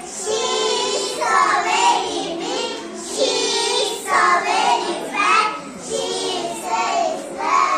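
A young child singing in short phrases.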